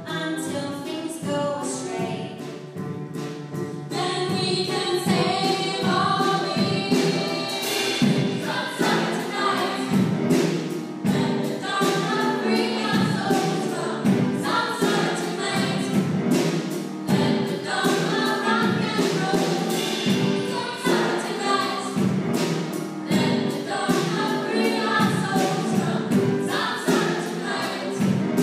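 Music: a choir of voices singing together over a steady beat.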